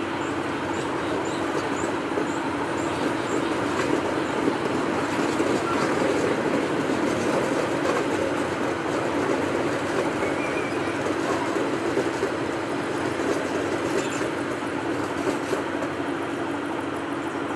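Indian passenger train coaches rolling slowly past at close range: a steady rumble of wheels on rail, with a few faint clacks over the rail joints.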